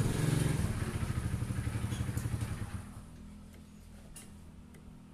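A motorcycle engine running with a steady pulsing beat, fading away after about three seconds, then a couple of faint metal clicks.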